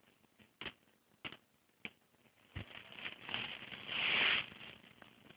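A cat's paws and claws tapping and scrabbling at a door: a few light taps, then a scratchy scuffling that builds and fades about four seconds in.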